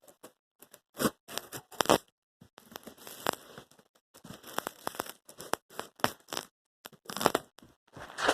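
Cardboard box and packing material being handled and torn open: irregular tearing, rustling and crinkling, broken by sharp crackles.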